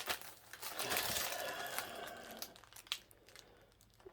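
MRE meal packaging crinkling and rustling as the packages are handled, with scattered clicks; the rustling dies away in the last second or so.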